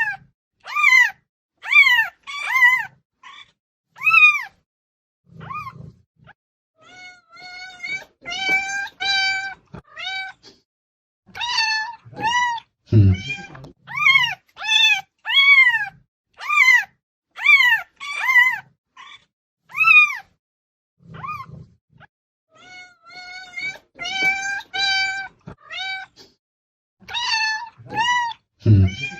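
Domestic cat meowing loudly and over and over: short meows that rise and fall in pitch, about one a second, broken by a few flatter, longer calls and short pauses. A dull low thump comes about halfway through and another near the end.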